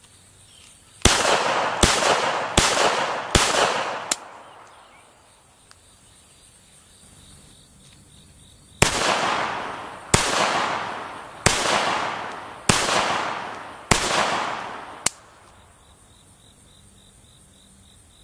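Savage Model 1907 .380 ACP pocket pistol firing two strings of shots: four quick shots in the first few seconds, then five more, about one a second, about halfway through, each report ringing out briefly. A thinner sharp click follows each string.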